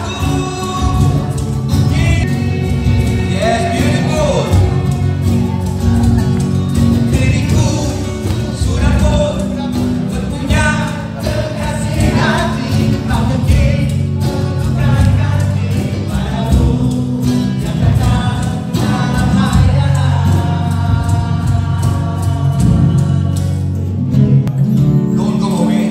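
A band playing a song with a lead vocal over drums and bass.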